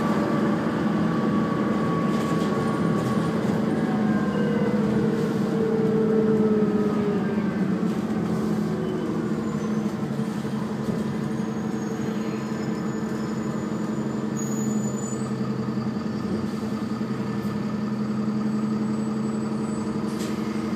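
Alexander Dennis Enviro 400 double-decker bus's diesel engine and drivetrain droning, heard from inside on the upper deck while the bus moves through traffic. For the first several seconds a whine shifts in pitch, falling and then rising, before settling into a steady drone.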